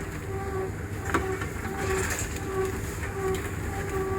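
Reverse vending machine running as it takes in a container: a machine hum that pulses about twice a second, with a sharp clunk about a second in.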